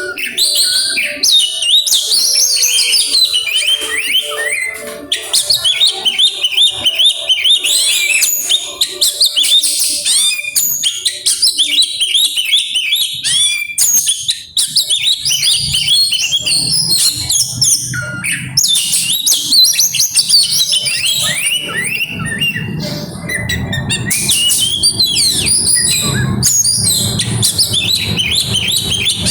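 Oriental magpie-robin (kacer) singing rapidly and without pause: a dense run of varied whistles, chirps and quick sweeping notes, mixing in songs mimicked from other birds.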